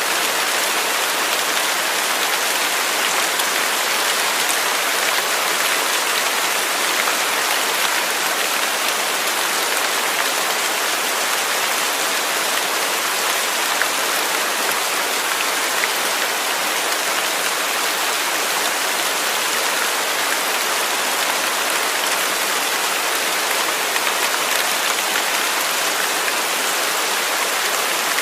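Steady rain falling without thunder, an even hiss of many drops.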